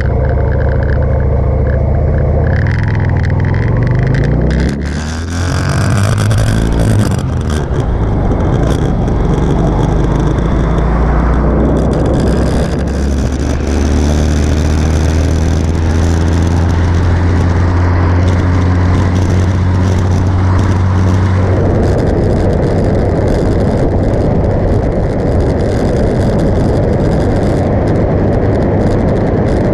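Motorcycle engine pulling away and rising in pitch about two and a half seconds in, with a brief drop near five seconds at a gear change, then running steadily at cruising speed. Heavy wind rush on the microphone builds as speed rises.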